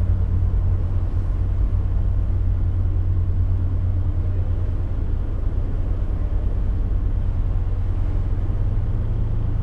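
Canal boat's engine running steadily inside a canal tunnel: a continuous low drone with a steady hum, its pitch shifting slightly near the end.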